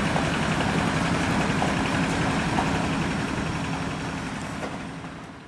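An engine running steadily with a low hum over a wash of noise, fading out near the end.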